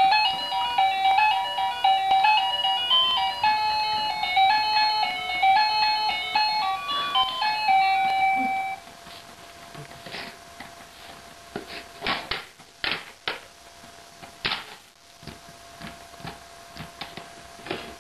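A musical stacking-ring toy plays an electronic tune of quick beeping notes, which stops about nine seconds in. For the rest of the stretch a faint steady tone remains, with scattered clicks and knocks as the plastic rings are handled.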